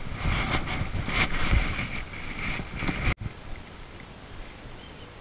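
Wind and handling noise on a camera microphone, a rumble with hiss, for about three seconds before it cuts off suddenly. A quieter outdoor background follows, with a few faint high chirps.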